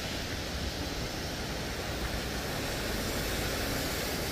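Steady rushing noise of a rain-swollen city stream mixed with a low rumble of road traffic.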